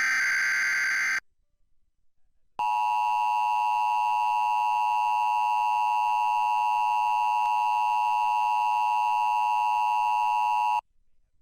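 The last burst of an Emergency Alert System digital SAME header, a harsh warbling data screech lasting about a second, then a short pause and the EAS attention signal: a steady two-tone chord (853 and 960 Hz) held for about eight seconds and cut off suddenly, marking the start of a required monthly test.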